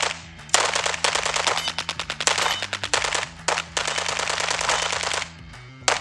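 Submachine guns firing full-auto in long rapid bursts with brief gaps, three main strings, plus a few single shots.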